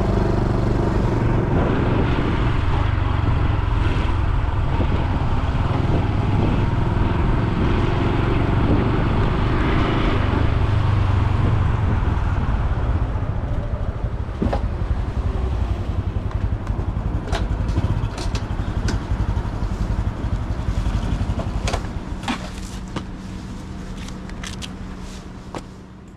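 Honda Super Cub C125's single-cylinder four-stroke engine running under way with road and wind noise, then easing off and settling to a steady idle over the last few seconds, with a few sharp clicks.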